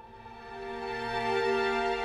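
Background music of sustained, held chords; a new chord comes in at the start and swells louder about a second in.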